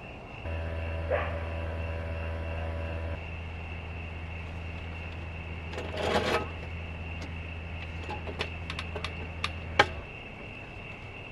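A small electric appliance or motor hums steadily for about nine seconds, louder in the first few seconds, then switches off, with a brief rush of noise midway and a run of sharp clicks just before it stops. Crickets chirp steadily behind it.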